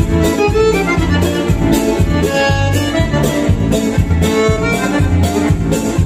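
Accordion playing a lively dance tune over a steady bass beat.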